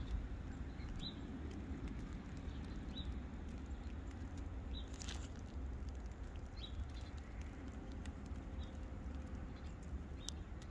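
A small bird chirping faintly, one short high chirp about every two seconds, over a low steady rumble.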